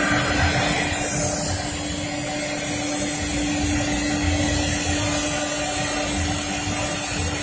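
Three-head CNC router running, a steady machine hum and rumble with a high spindle whine that comes in about a second in.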